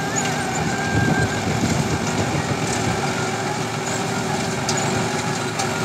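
Sonalika tractor's diesel engine running steadily while it pulls a straw reaper, with the reaper's machinery running behind it as it cuts and chops wheat stubble into straw (tudi).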